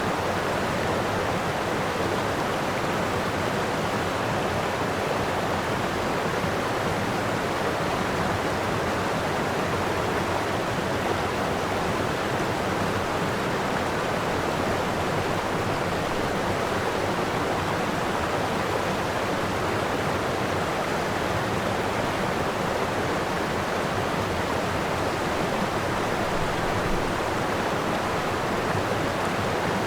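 Floodwater rushing steadily, a constant, unbroken noise of flowing water.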